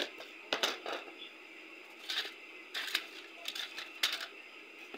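Small objects clattering and rustling in a wooden chest of drawers being rummaged through by hand: a handful of short sharp clicks and knocks, over a steady background hum.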